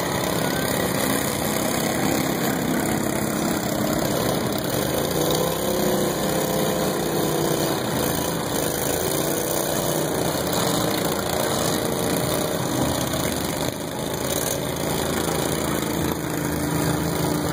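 Small riding lawn mower engines running, with the engine note rising and falling as the mowers speed up and slow down.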